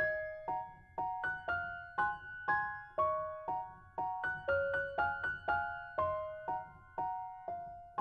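Background music: a light, simple piano melody in evenly paced notes, about two a second, each note ringing and fading, over a soft low accompaniment.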